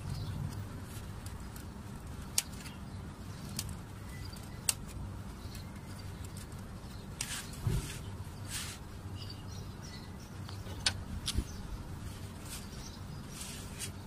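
Scattered sharp clicks and brief rustles of hands working a plastic wiring connector at a car's ignition coil, engine off, over a faint steady background.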